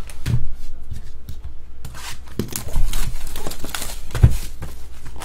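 Plastic shrink wrap crinkling and tearing as it is stripped off a trading-card hobby box, in irregular scratchy crackles, with a couple of dull knocks from the box being handled.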